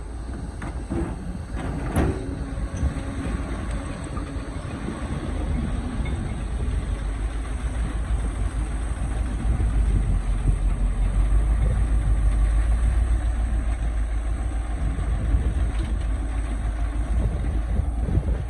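Excavator's diesel engine running with a steady low rumble that grows louder about halfway through, and a sharp knock about two seconds in.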